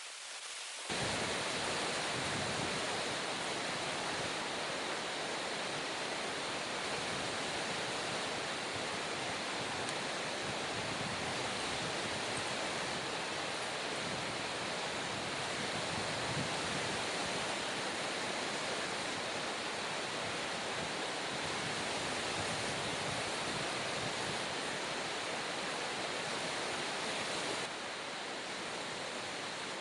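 Steady rush of a fast-flowing river, a dense, even noise without breaks. It cuts in abruptly about a second in and drops slightly in level near the end.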